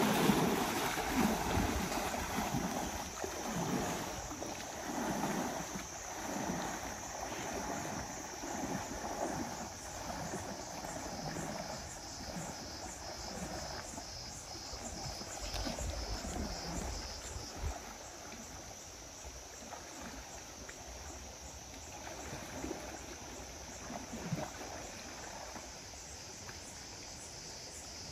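Water splashing and surging as a person wades quickly through a shallow stream, one swell of water with each stride, about once a second. The splashing is loudest at the start and dies down about two-thirds of the way through, leaving a softer lapping.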